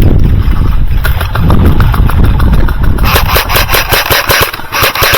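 Heavy rumbling handling and movement noise on the body-worn microphone. From about three seconds in, airsoft guns fire on full auto: a rapid, even train of sharp clicks.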